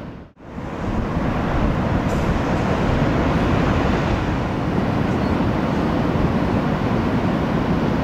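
Ocean surf breaking, a loud steady wash of noise heaviest in the low end. It drops out briefly about a third of a second in, then resumes.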